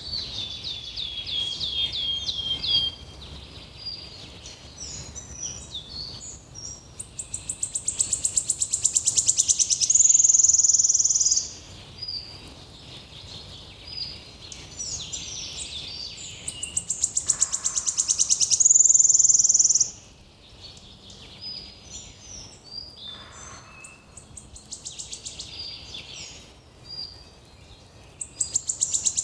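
Forest birds singing. One bird repeats a loud song about every ten seconds, a fast trill that speeds up and ends in a high buzz, while other birds chirp more quietly in between.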